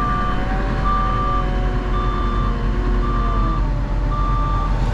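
Articulated wheel loader's backup alarm beeping steadily, about one beep a second, while the machine creeps in reverse. The loader's engine runs underneath at a low, steady speed.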